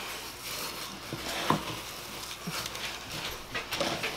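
A spoon stirring dry powdered laundry detergent of soap flakes and Borax in a glass jar: a gritty scraping rustle, with a sharp click about a second and a half in and a few more near the end.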